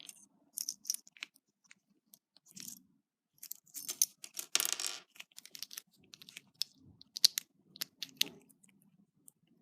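Hands handling a Kinder Surprise toy capsule and its small plastic toy pieces: scattered light clicks and taps, with a short rustling burst about halfway through.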